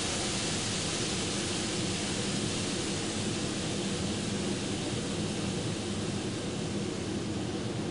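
Steady rushing noise with a low hum beneath it; the high hiss eases slightly toward the end.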